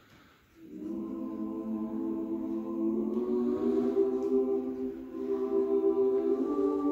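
Mixed choir singing in close harmony. After a brief pause the voices come in together about a second in on a held chord, then move slowly through further sustained chords.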